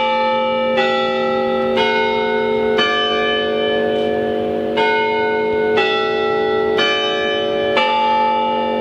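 Orton Hall's tower chime bells playing a slow tune, one struck note about every second with a short pause midway, each bell ringing on under the next.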